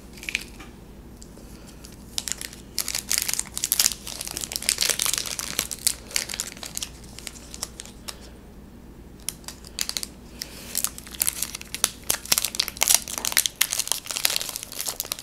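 Foil Pokémon trading-card booster pack crinkling and tearing as it is handled and opened by hand. It comes in two spells of dense crackling with a short pause in between.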